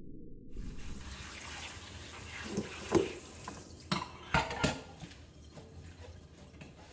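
Kitchen tap running, with water splashing as lettuce is rinsed under it, and a few sharp knocks from handling in the sink between about two and a half and five seconds in.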